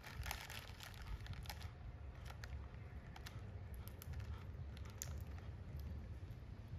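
Plastic snack wrapper crinkling in the first second or two, then sparse small clicks as a baby macaque's fingernails are trimmed, over a steady low hum.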